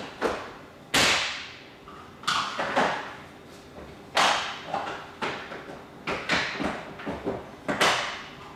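ABS plastic interlocking floor tiles being lifted, angled and pushed down onto each other's clips: a run of irregular sharp plastic clacks and knocks, the loudest about a second in, around four seconds and near the end.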